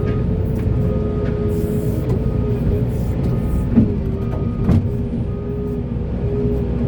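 Diesel engine of a large hydraulic excavator running under load with a steady hydraulic whine, and two short clanks about four and five seconds in.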